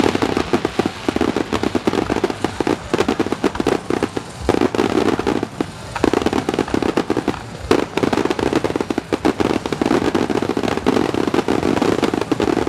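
Fireworks display: aerial shells bursting in a rapid, irregular run of sharp bangs and crackles, thinning out briefly a few times. Heard through a camera's built-in microphone.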